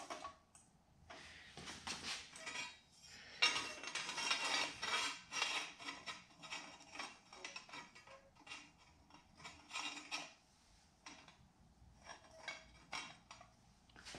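Metal plant-stand parts being fitted together by hand: the curved legs clinking, rattling and scraping against the round metal hub, with small ringing clinks. The handling is busiest about three to six seconds in, then goes on in scattered knocks and scrapes.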